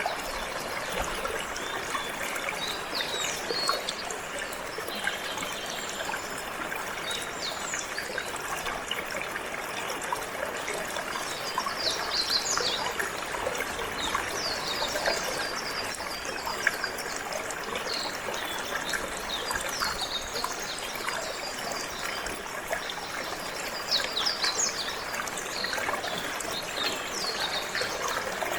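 Water trickling and flowing steadily, with canaries chirping over it in short, quick high notes that come in scattered clusters.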